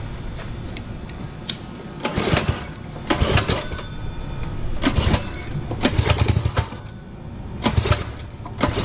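212cc single-cylinder engine on a kids' quad being pull-started, cranked about six times in short bursts without settling into a run. It is stiff to turn over, which the owners put down to a drive chain that is too tight.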